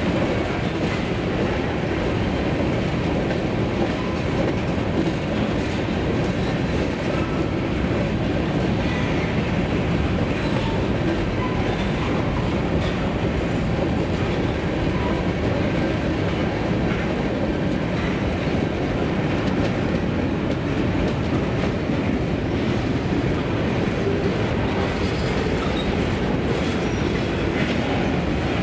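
Freight cars (covered hoppers, tank cars and boxcars) rolling past at steady speed: a continuous rumble of steel wheels on the rails.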